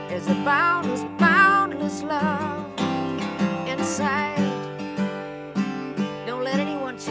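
Background music: strummed acoustic guitar with a melody that wavers in pitch over it.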